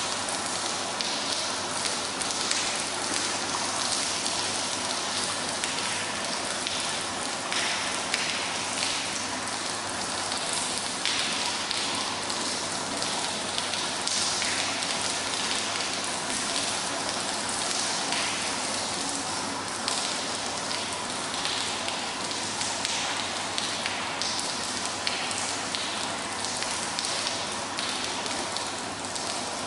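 Rain falling and splashing onto a wet, puddled floor: a steady hiss with many small drop splashes throughout.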